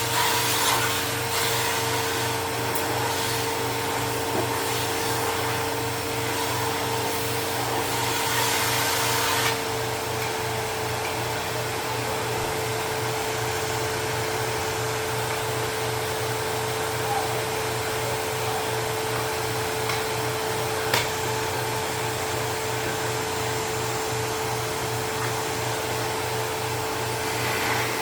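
Dust Care Evolution Prestige 6502Z upright vacuum running steadily with a constant motor hum and whine. About a third of the way through the sound becomes slightly quieter and duller, and there is a single short click near the end.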